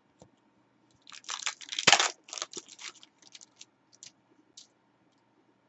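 AFL trading cards being shuffled and slid against each other by hand: a quick run of dry rustling and scraping starts about a second in, with one sharp click, then a few light ticks as cards are set down.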